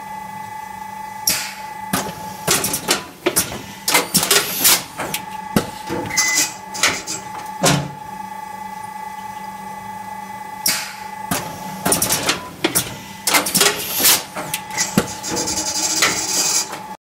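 Schneider Ozga SO 960 automatic strapping machine strapping magazine bundles, one strap per bundle. A steady machine hum runs under two spells of rapid clacking and knocking, one about a second in and one from about eleven seconds on.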